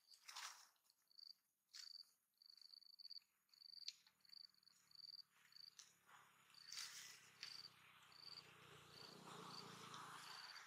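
Faint insect chirping: short high chirps repeating about two a second, with a few crackles of dry leaves as a monkey moves through leaf litter. A faint low hum comes in about three seconds in and fades near the end.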